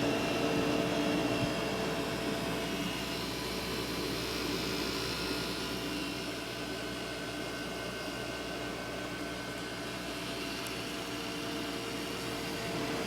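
Desktop PC cooling fans running steadily at high speed, an even whoosh with a faint steady hum. The computer powers on but shows no display, and the fans running faster than usual are a sign of a fault the owner suspects is in the motherboard.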